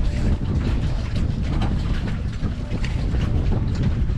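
Wind buffeting the microphone: a loud, steady low rumble with scattered faint crackles above it.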